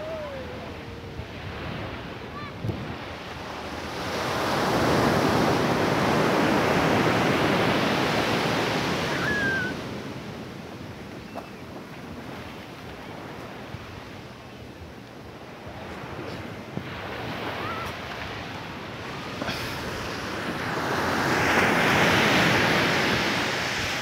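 Small waves breaking and washing up a sandy beach. The surf swells up loud about four seconds in and again near the end, with a quieter wash between.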